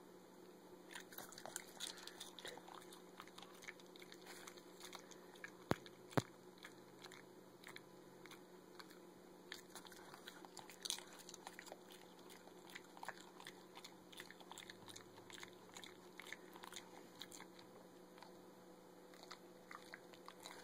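Boston Terrier chewing and crunching popcorn: a quick, uneven run of small crunches and clicks, with two sharper cracks about six seconds in.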